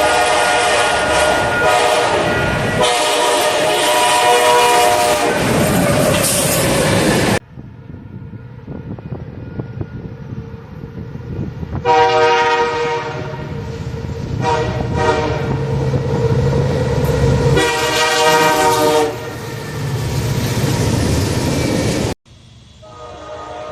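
Train air horns played back pitched down, in a string of separate clips. First comes a multi-note horn chord that cuts off abruptly about seven seconds in. Then a train's low rumble with a series of horn blasts, then another horn chord starting near the end.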